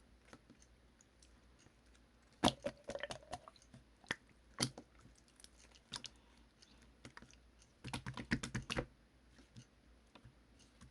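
Slime being squeezed and poked by hand, giving sticky clicks and pops. There is a quick run of them about two and a half seconds in, a few single pops after that, and a dense cluster about eight seconds in.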